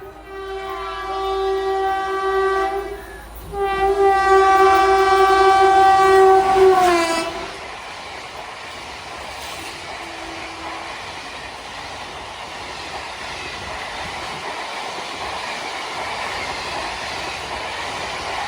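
Indian Railways locomotive horn blown twice, a shorter blast and then a longer one whose pitch drops at its end as the locomotive passes. The horn is followed by the steady noise of the train's coaches rolling by on the rails.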